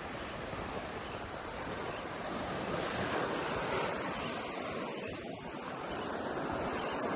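Ocean surf washing onto a beach, a steady rush that swells about three seconds in and again near the end, with wind buffeting the microphone.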